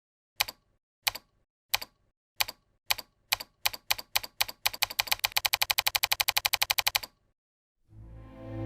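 Sharp key clicks like typing, slow at first and speeding up into a fast even run of about eight clicks a second that stops abruptly about seven seconds in. Soft music fades in near the end.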